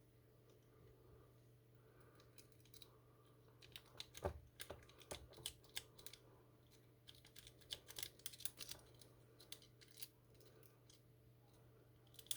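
Faint, irregular metallic clicks and scratches of a paper clip raking the pins of a Bunker Hill weatherproof padlock. They start about three and a half seconds in and continue in uneven flurries over a low steady hum.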